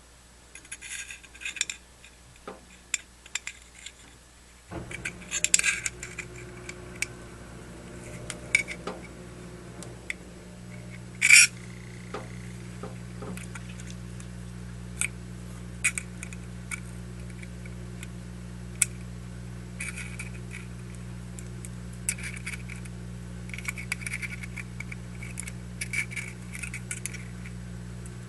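Small metal clicks and scrapes of tweezers against a Zippo lighter's metal insert as a wick is threaded up through it, with one sharper click near the middle. A steady low hum comes on about five seconds in.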